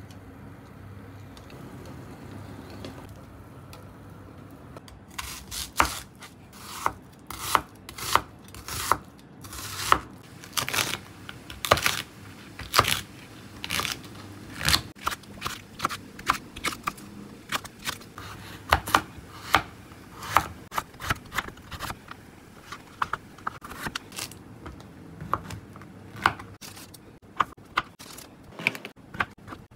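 Knife chopping on a cutting board: after a few quiet seconds, sharp knocks come at an uneven pace of one to three a second.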